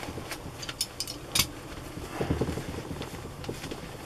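Nylon-like NBC suit trousers rustling and crinkling as they are unfolded and spread out by hand, with a few sharp crackles about a second in and a louder stretch of handling just past halfway.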